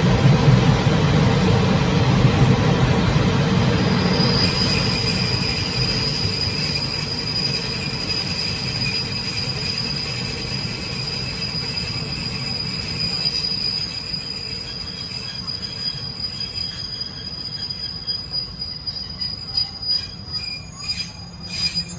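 Taiwan Railway Chu-Kuang express passenger train heard at the gangway between cars, slowing down: the low rumble of wheels on rail fades steadily, a steady high-pitched squeal sets in about four seconds in and holds, and a few clunks come near the end as the train nears a stop.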